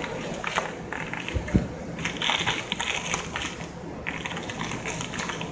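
Vehicle's steering being turned by a remote-controlled drive-by-wire actuator: three stretches of whirring and scraping over a steady low hum. A single low thump comes about a second and a half in.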